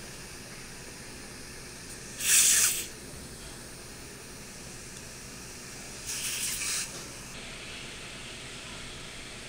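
Surgical suction tip running with a steady hiss, breaking twice into a louder slurping rush as it draws up blood and saliva from the wound: a sharp one about two seconds in and a weaker one about six seconds in.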